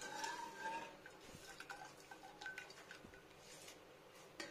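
Perforated metal skimmer touching a metal kadai as boiled water spinach is scooped out of its water. The kadai gives a faint ringing that dies away in about the first second, followed by a few light taps that each ring briefly.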